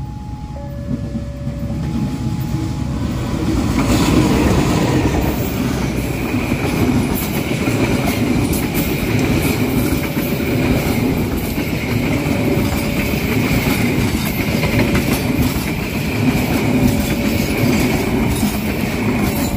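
Diesel-hauled passenger train passing close by at a level crossing. The locomotive's rumble builds to its loudest about four seconds in, then the coaches roll past steadily with wheel clicks over the rail joints and a steady high wheel-on-rail whine. At the start a level-crossing warning siren alternates between two tones, and it goes on repeating faintly under the train.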